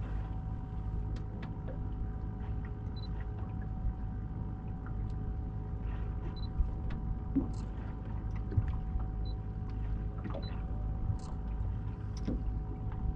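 Boat engine idling steadily, a low hum with a faint steady whine, with scattered small clicks and taps on top.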